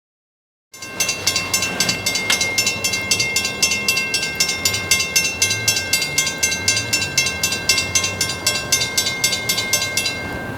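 Railroad grade crossing bell ringing rapidly, about five strikes a second with a steady metallic ring, starting after a moment of silence and cutting off just before the end.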